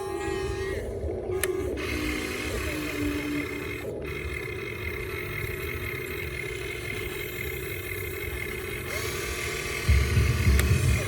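Huina 1592 radio-controlled excavator's small electric motors whining steadily, the pitch shifting a few times as different functions run. A louder low rumble comes near the end.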